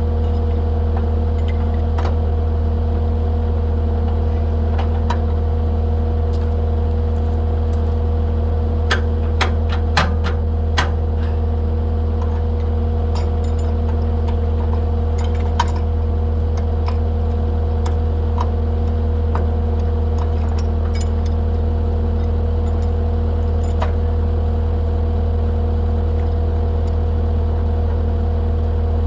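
Skid steer engine idling steadily, with scattered metallic clinks and taps of a pipe wrench working on the steel grapple arm, clustered about nine to eleven seconds in and again around fourteen to sixteen seconds.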